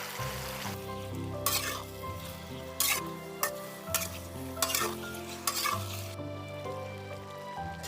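Wild mushrooms and cured pork frying and sizzling in a pan as they are stirred, with a sharp scraping stroke about once a second. Quiet background music plays underneath.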